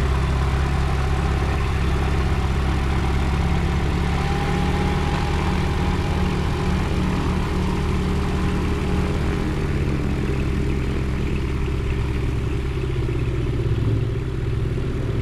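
Piston engine of a small single-engine light aircraft running steadily at idle, a low, even engine note that holds level throughout.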